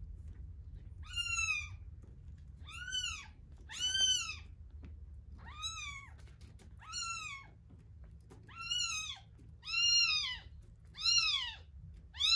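A young kitten mewing again and again: about nine short, high-pitched calls, each rising and then falling in pitch, roughly a second apart, getting louder toward the end.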